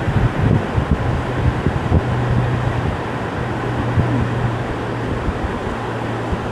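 Outdoor ambience: wind rumbling on the microphone, with a steady low machine hum joining about a second in.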